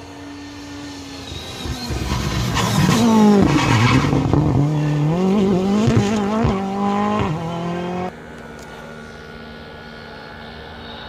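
Rally car passing at speed, its engine revving up and down through gear changes with a few sharp cracks. The sound swells, then cuts off suddenly about eight seconds in.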